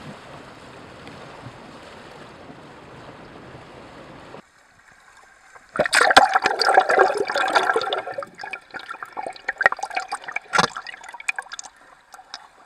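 Swirling water of a strong tidal current around a whirlpool: first a steady rushing hiss, then, after a cut about four seconds in, loud irregular splashing and gurgling with sharp slaps as the water washes over a camera at the surface.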